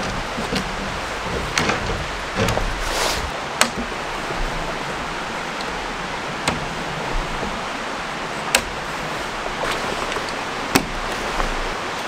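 Steady rushing of wind, with about eight sharp clicks and knocks spread through it as the metal poles and plastic clips of a small A-frame tent are handled and snapped together.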